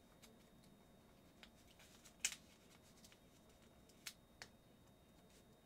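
Faint handling of small paper pieces on a tabletop: a few scattered soft clicks and rustles, the sharpest about two seconds in.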